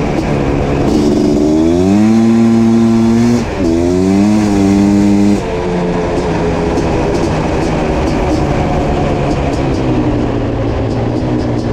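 1987 Suzuki LT500R's 500cc liquid-cooled single-cylinder two-stroke engine, breathing through an FMF Fatty expansion chamber, revving up under throttle. Its pitch dips briefly about three and a half seconds in, then climbs again. The throttle shuts abruptly about five seconds in, and the engine drops to a lower, steady run that slowly falls in pitch.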